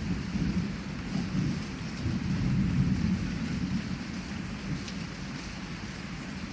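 Heavy rain falling steadily with scattered drop ticks, under a low rolling thunder rumble that swells about two seconds in and then eases.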